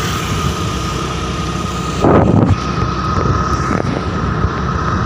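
Riding noise on a moving scooter: wind rushing over the microphone, with the running engine and tyres beneath it and a steady high whine. A stronger buffet of wind comes about two seconds in.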